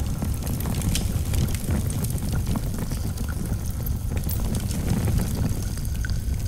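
Fire sound effect: a steady low roar of flames with scattered crackles.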